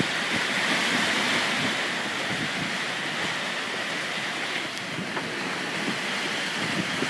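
Seawater rushing and churning past a sailing yacht's stern in rough, breaking seas. Wind buffets the microphone throughout.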